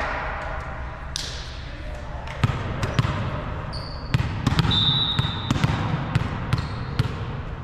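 Volleyball play on a court: a series of sharp smacks of the ball being struck and landing, with short high squeaks of sneakers on the floor.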